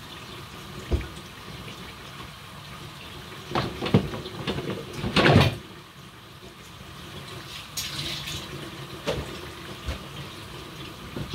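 Plantain slices frying in a pot of hot oil, a steady sizzle. Over it come knocks and clatter of plastic tubs and dishes being handled in a dish rack, loudest in a burst a few seconds in.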